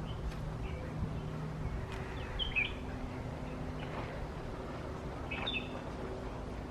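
Small birds chirping, short calls every couple of seconds, over a faint steady hum.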